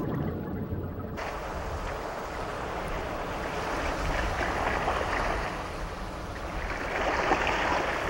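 Rushing water noise that comes in about a second in and swells twice.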